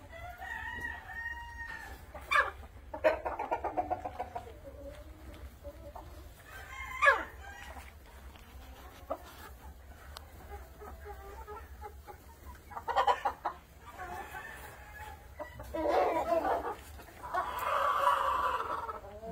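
A flock of Ayam Cemani chickens clucking and calling, with a rooster crowing and a longer held call near the end.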